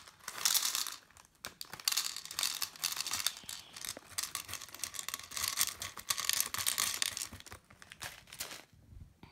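Dense, irregular clicking and rattling of small plastic beads and the plastic parts of a toy bead-bracelet maker being handled, stopping near the end.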